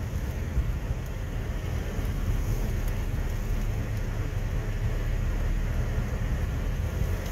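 Strong windstorm gusting around a pickup truck: a steady low rumble and rush of wind noise with no let-up.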